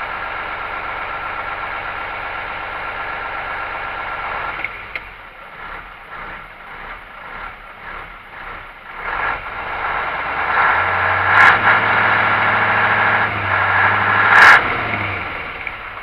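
A YaMZ-238 V8 diesel in a Ural truck, just started, idling. About four and a half seconds in it settles to a lower, quieter idle. About ten seconds in it is revved up for several seconds, then drops back, with two sharp clicks while it is revved. The engine is running on freshly changed oil while its oil pressure is checked: about 4.5 at idle and up to 6 with a little throttle.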